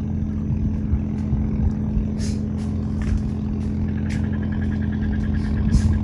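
Steady drone of a boat engine running on the river, holding one even low pitch. A few short hissy bursts come and go, and a fast, even high ticking starts about two-thirds of the way through.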